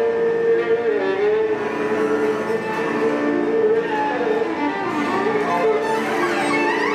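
Violin bowed in free improvisation: long held notes that slide up and down in pitch, with a quick upward glide near the end.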